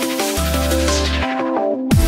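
Electronic dance music: a stepping synth melody over a deep sustained bass, with the treble sweeping downward in the second half.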